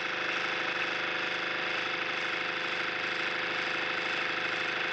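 Steady mechanical whirring with a fast, even rattle over a constant hum, like a small machine running at a steady speed.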